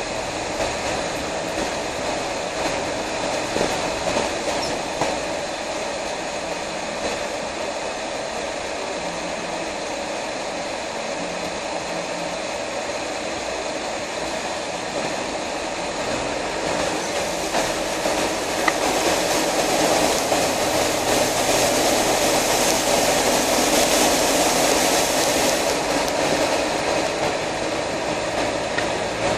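Land Rover Defender driving, with steady engine, drivetrain and tyre noise and a whine held at several pitches. A bit over halfway through, a louder rushing hiss of water spraying as it wades through floodwater joins in and cuts off a few seconds before the end.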